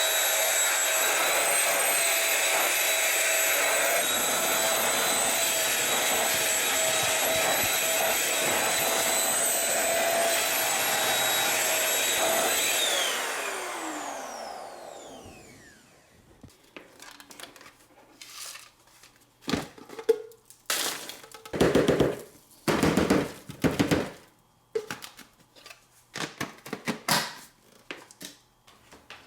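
Dirt Devil SimpliStik stick vacuum running with a steady high-pitched motor whine. About 13 seconds in it is switched off, and the whine falls in pitch as the motor spins down over a few seconds. Then comes a series of separate clicks and knocks of handling.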